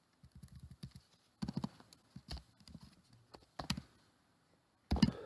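Computer keyboard keystrokes: a quick run of light taps, then a few heavier single keystrokes spaced a second or so apart.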